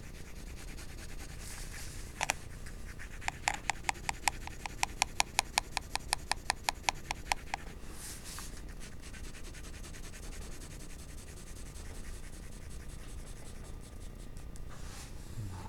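Graphite pencil shading on paper: a run of quick back-and-forth strokes, about five a second, for around four seconds, with lighter scratching before and after.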